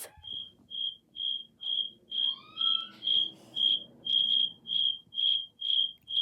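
Cricket chirping as a comedy sound effect: short high chirps at one steady pitch, about two a second, marking an awkward silence.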